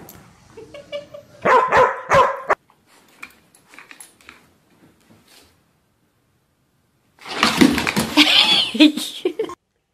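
Dogs barking in two loud bouts, one about a second and a half in and a longer one of about two seconds near the end.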